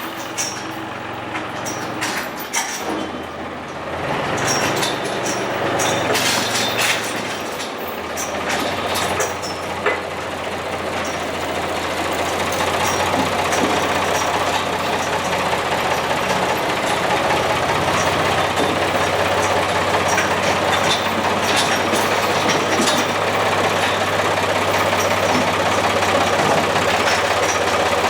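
Case tractor engine running steadily, growing slowly louder, with scattered clicks and rattles in the first ten seconds.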